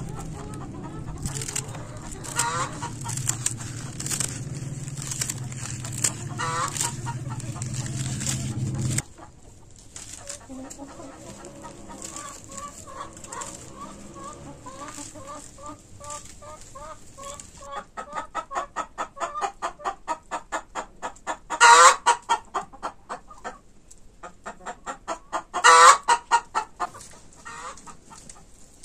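Flock of domestic chickens clucking, with quick runs of short repeated clucks and two loud, drawn-out calls about four seconds apart near the end. A steady low hum runs under the first third and stops abruptly about nine seconds in.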